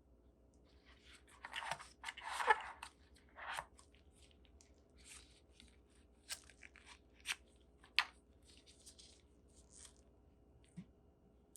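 Phone packaging being handled: plastic wrapping and cardboard crinkling and rustling in a few bursts, then scattered light clicks and taps.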